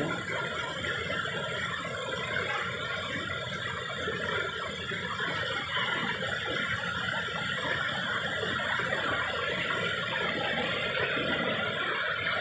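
Tall waterfall pouring into a rocky pool, with the stream running over stones: a steady, dense rush of falling water.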